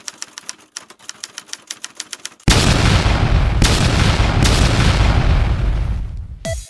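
Intro sound effects: a rapid even train of sharp clicks, about six a second, then at about two and a half seconds a sudden loud boom that rushes on for some four seconds and fades. Near the end electronic music with a deep kick drum starts.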